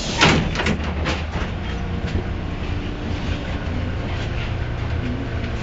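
Cabin noise inside a moving trolleybus: a steady low rumble, with a burst of rattles and knocks from the body in the first second or so.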